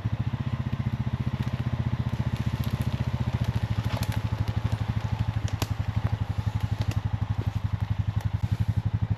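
Four-wheeler (ATV) engine running at a low, steady chug, with a few sharp cracks over it.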